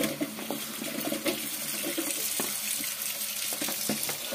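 Kitchen tap running into a steel bowl of cut turnip pieces in a stainless steel sink, with a few short knocks as more pieces are tipped in from a cutting board and the washing goes on.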